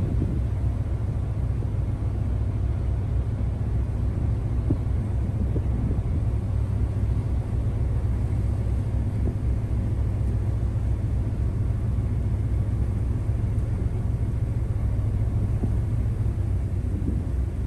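Steady low drone of a car ferry's engine, heard from on board.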